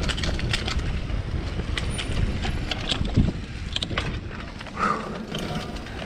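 Electric bike riding fast along a dirt trail: a steady rumble of wind on the microphone and tyres on the ground, with scattered clicks and rattles from the bike over bumps.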